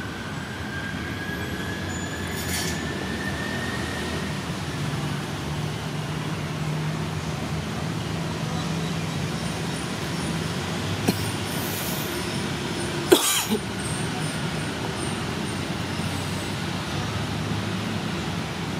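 Steady traffic noise, with a faint whine rising slowly in pitch over the first few seconds and two sharp clicks a couple of seconds apart past the middle, the second the loudest sound.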